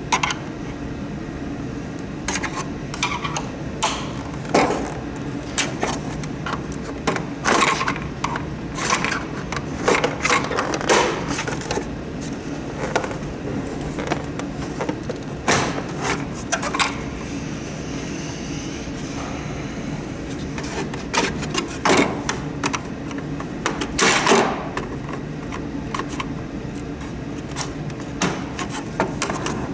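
Irregular clicks, knocks and scrapes of hand tools and parts being handled while working at getting a humidifier's housing apart, over a steady low hum.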